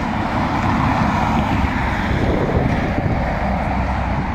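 Wind buffeting the phone's microphone in a steady, irregular rumble, mixed with the distant noise of a jet airliner's engines on the runway.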